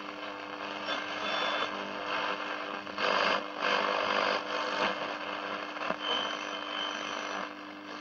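FADA portable radio's speaker giving static and hiss as its tuning knob is turned between stations, with steady hum under it and brief high whistles. The hiss swells louder about three seconds in.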